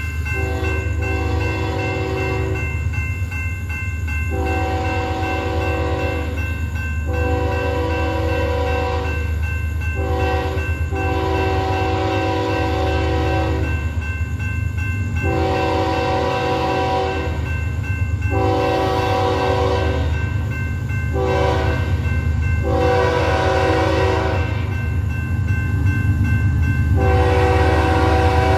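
Diesel locomotive air horn sounding a long series of blasts, each lasting a few seconds with short breaks, as the train approaches a grade crossing. Under it run the low steady rumble of the oncoming train and a steady ringing tone from the crossing's warning bell.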